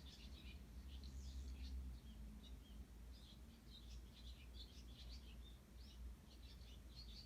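Eurasian tree sparrows chirping, many short high calls overlapping, faint, over a steady low rumble.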